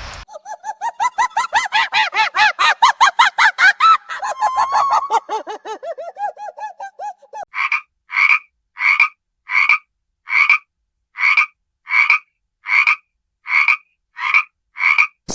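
Frogs croaking: a fast run of pulsed calls for about seven seconds, then a single frog calling at an even pace, about one call every 0.7 seconds.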